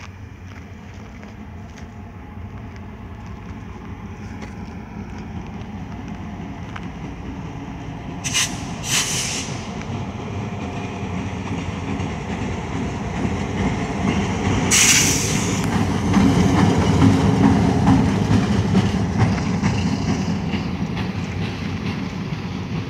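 A single Grand Trunk Western (GT) diesel locomotive approaching and passing: its engine rumble grows steadily louder, loudest about three-quarters of the way through. Short hissing bursts come twice near the middle.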